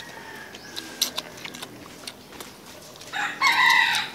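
Rooster crowing, loud in the last second and running on past it. Before that there is a fainter, drawn-out crow in the first two seconds and a few sharp clicks.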